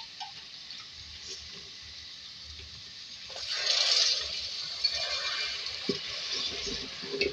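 Onion, garlic and spice masala sizzling in hot oil in a metal pot. About three and a half seconds in, half a cup of water is poured in and the hiss swells loudly for about a second, then settles back to a sizzle as a wooden spoon stirs it.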